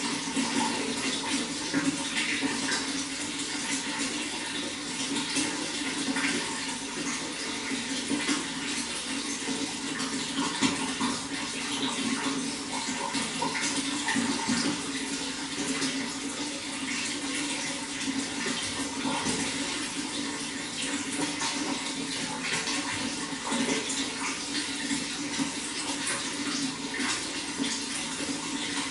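Running water flowing steadily, a continuous splashing, gurgling rush with small spatters throughout.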